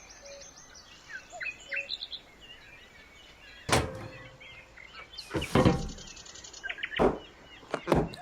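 Small birds chirping and twittering throughout, with several sharp knocks over them: one about four seconds in, a longer clatter around five and a half seconds, and three more knocks near the end.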